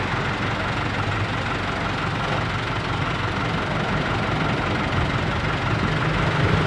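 Hino Dutro car-carrier truck's diesel engine idling steadily.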